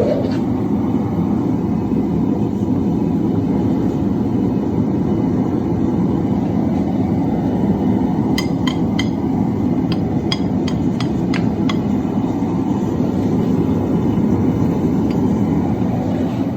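A steady, loud rumbling, the kind a running forge or shop machine makes, with a quick run of about ten ringing hammer blows on hot steel about halfway through, as a forge-welded billet is drawn out thinner.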